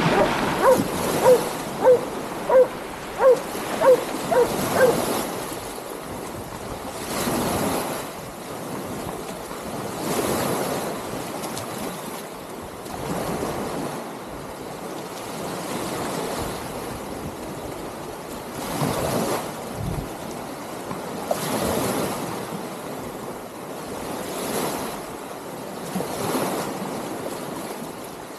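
Small waves washing and breaking on a sandy shoreline, swelling every few seconds, with some wind on the microphone. About eight short, sharp, pitched chirps come in quick succession during the first few seconds.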